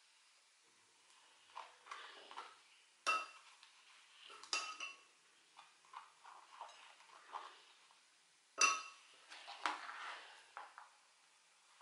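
A spoon clinking and scraping against a ceramic cup and a bowl while scooping harissa and filling, with three sharp ringing clinks among softer taps and scrapes.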